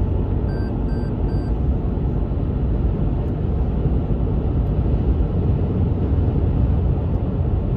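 Steady road and engine rumble inside the cabin of a Toyota Hilux pickup on the move. Three short electronic beeps sound in quick succession about a second in.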